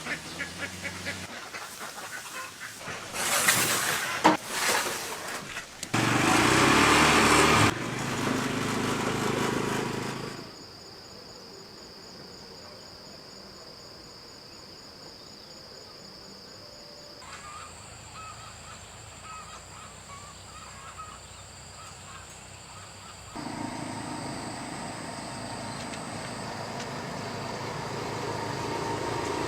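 Flock of domestic ducks quacking, with abrupt cuts between stretches: a louder, noisier passage in the first third, then quieter steady background with a thin high whine.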